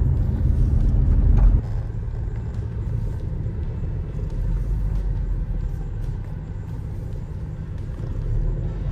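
Steady low rumble of a running vehicle, easing off in level about one and a half seconds in.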